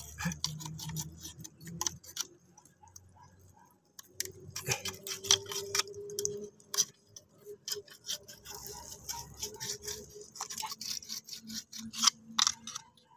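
Hand and a thin rod probing a flooded mud crab burrow: irregular clicks, scrapes and small splashes of muddy water, with a short quieter spell about two seconds in.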